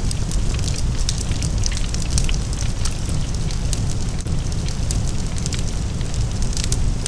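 Large fire burning: a steady low rumble with dense crackling and popping throughout.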